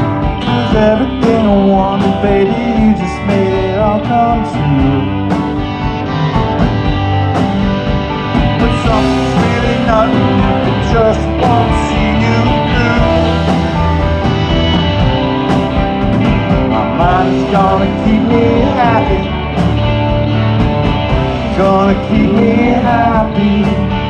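Live rock band playing a song: several electric guitars, bass guitar and drums, loud and continuous, with bending melodic notes over the chords.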